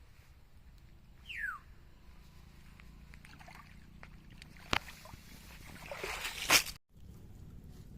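Water sloshing and splashing that swells into a loud rushing splash and cuts off abruptly, with a sharp click shortly before it and a short falling whistle early on.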